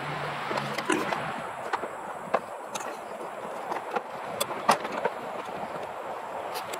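Stiff wire and a taped power cable being worked through a hole in a plastic kayak deck: scattered light clicks and scrapes, about eight in all, over a steady hiss.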